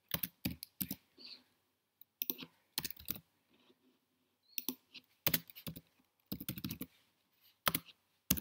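Typing on a computer keyboard: quick clusters of keystroke clicks broken by short pauses.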